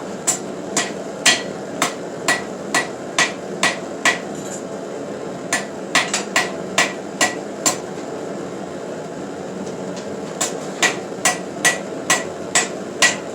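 Hand hammer striking hot steel on an anvil, flattening the end of a forged leaf where it has begun to mushroom. The blows come about two a second in three runs with short pauses between, each blow with a brief metallic ring.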